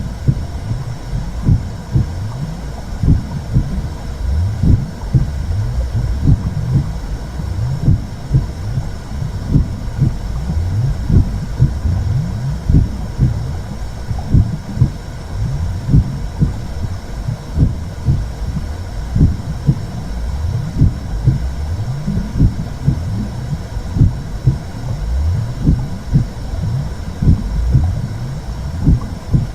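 Womb sound for soothing a baby: a steady low whooshing rumble with frequent, irregular deep pulses throbbing through it.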